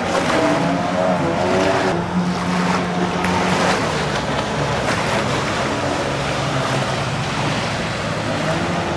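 Jet ski engines running, the pitch shifting in the first couple of seconds as the craft pulls away, then steady, over the hiss of water spray.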